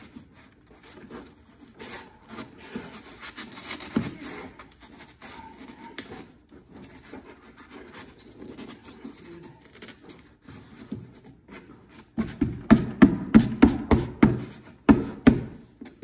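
Hands rubbing and pushing a freshly glued patch panel into a boat's back seat base, with a soft, uneven scraping. Near the end comes a quick run of knocks, about three or four a second, as the panel is slapped and pressed home.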